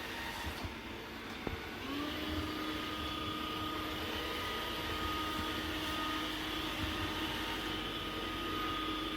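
Dreame L50 Ultra AE robot vacuum running with a steady whine. About two seconds in, after a small click, its suction fan speeds up and the pitch rises quickly to a higher, slightly louder whine that then holds steady: a step up to a stronger suction mode.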